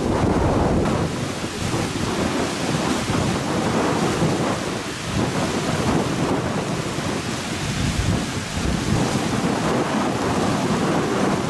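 Storm noise: strong wind gusting and buffeting the microphone in a continuous low rumble, with rain and a rough sea breaking against the shore.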